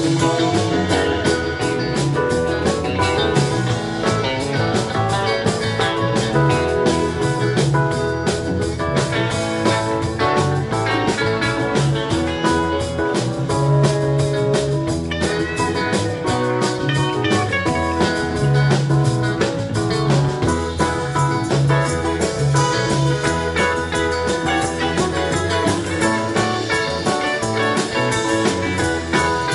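Live rock band playing: electric guitars, bass guitar and keyboard over a drum kit keeping a steady beat.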